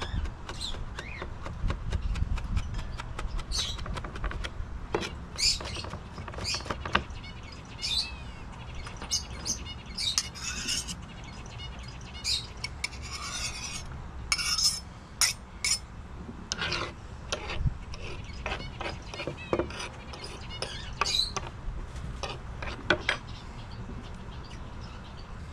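Scattered clinks and knocks of cooking utensils and dishes being handled, with birds chirping now and then.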